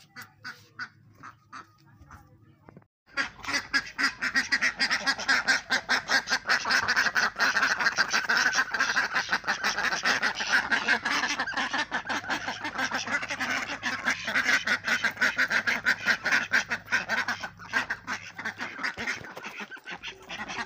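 A flock of domestic ducks quacking many at once in a dense, unbroken chorus, starting about three seconds in and thinning out near the end. The ducks are clamouring to be let out of their pen.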